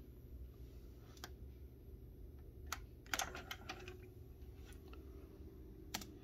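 About six faint, separate button clicks as the Nakamichi 480 cassette deck's transport keys are pressed to put it into record, with a laptop touchpad click near the end.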